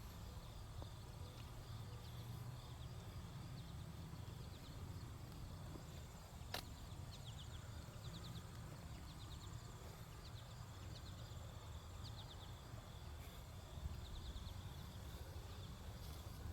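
Insects chirping in short trains of a few rapid ticks, repeating every second or so over a low steady rumble, with one sharp click about six and a half seconds in.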